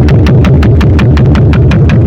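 Electronic music played very loud through a JBL Tornado 2200 speaker: a heavy, dense bass line under fast, evenly spaced ticking percussion.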